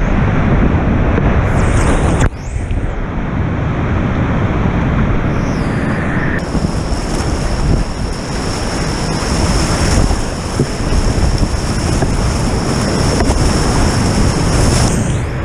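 Whitewater rapids rushing loudly around a kayak, heard close up from a camera on the boat, with spray hitting the camera housing; the sound drops sharply for a moment about two seconds in.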